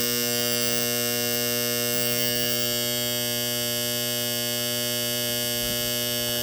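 Vintage alarm clock's buzzer sounding its alarm: a steady, unbroken electric buzz.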